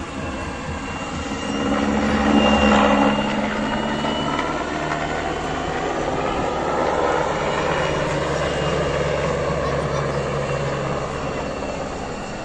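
Military helicopter flying a display pass: steady turbine and rotor noise with a held whine, loudest about two to three seconds in, then easing slightly near the end.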